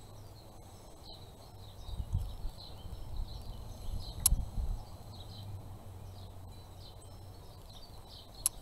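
Chipboard house cut-out being lifted, slid and set back down on a sheet of scrapbook paper: soft rubbing and dull bumps about two and four seconds in, with a sharp click near the middle and another near the end. Faint high chirps repeat throughout in the background.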